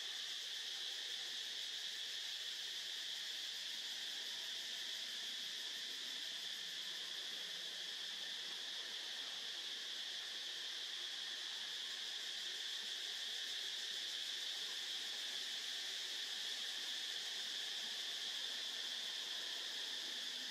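Steady chorus of insects: an unbroken, high-pitched drone that holds the same level throughout.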